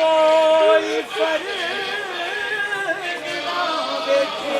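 A solo voice chanting a noha, a Shia mourning lament in Punjabi, holding long notes with wavering, ornamented bends in pitch.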